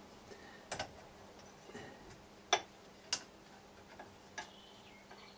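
Scattered light clicks and taps from the metal parts of a homemade hollowing rig being adjusted by hand: its threaded bar and wing nut are being set to raise the cutter a fraction. The sharpest clicks come about two and a half and three seconds in.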